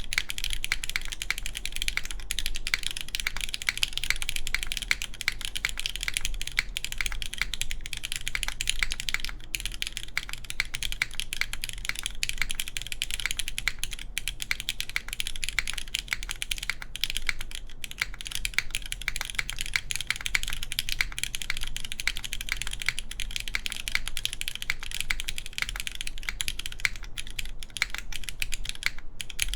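Continuous fast typing on a gasket-mount mechanical keyboard with lubed, linear Cherry MX Black switches in an aluminium plate. The keys give a dense run of soft, somewhat boomy clacks.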